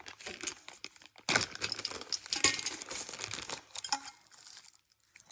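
Packaging crinkling and tearing as a small diesel-heater exhaust muffler is unwrapped by hand. The rustling is busiest in the middle and dies down near the end.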